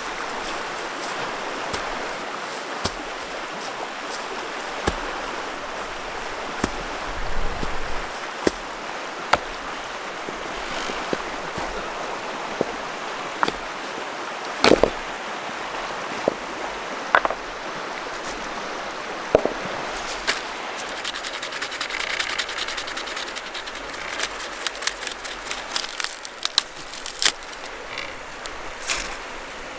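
Steady rushing of river rapids, with scattered knocks and clicks of someone moving about on the stony bank. Near the end comes a quick run of scraping clicks: birch bark being scraped with a metal rod.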